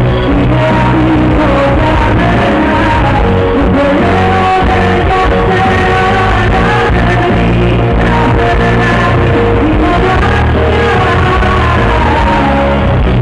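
A woman singing a Greek laïko song live with a backing band, the music loud and continuous.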